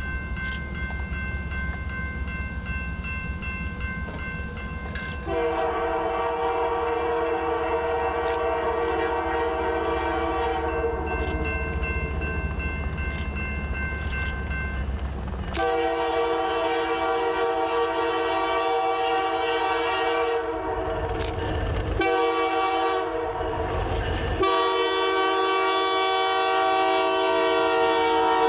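Air horn of Canadian Pacific GP20C-ECO locomotive 2246 sounding long blasts as the train approaches and passes: a faint chord at first, then loud from about five seconds in, held with a few short breaks. Under it is the rumble of the train rolling past.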